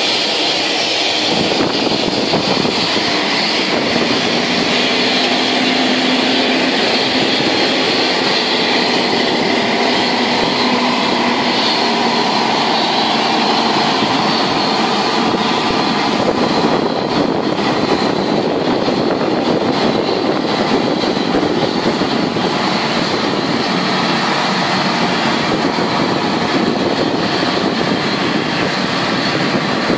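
Steady, loud jet whine and rush from a Boeing 747-400 freighter during pushback by a tow tug, with a faint low hum in the first half.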